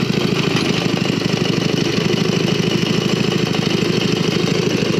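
Small single-cylinder Briggs & Stratton engine on a motorised wagon, running steadily with an even, rapid firing pulse while the wagon is ridden along.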